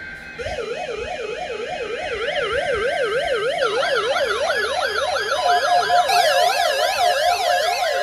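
Several NOAA weather radio receivers sounding their warbling alert sirens, set off by a Required Weekly Test. The first starts about half a second in, a second joins about three and a half seconds in, and a higher-pitched one about six seconds in, each rising and falling about four times a second.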